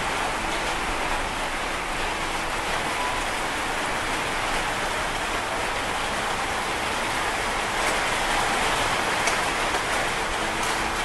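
Heavy rain pouring steadily onto sheet-metal roofing, an even, unbroken hiss.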